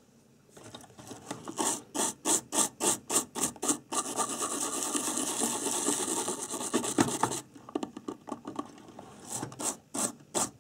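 A bristle brush scrubbing the solder side of a circuit board to clean freshly soldered joints. It starts with quick back-and-forth strokes, about three a second, runs into continuous scrubbing in the middle, pauses briefly, then the strokes resume near the end.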